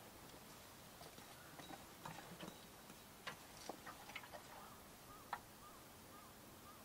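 Near silence broken by a scattered handful of faint clicks and light knocks as a person shifts about under bedding on a van's bed platform, the sharpest about three and five seconds in. A few faint chirps follow near the end.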